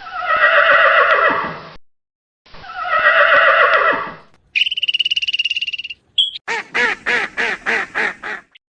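Farm animal calls in quick succession: two long pitched calls of nearly two seconds each, then a short buzzing call, then a quick run of short calls.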